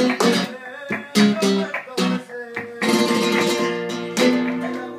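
Nylon-string Spanish guitar played solo: several sharp strummed chords, the first near the start and the rest about a second apart, with the chords ringing on between strokes.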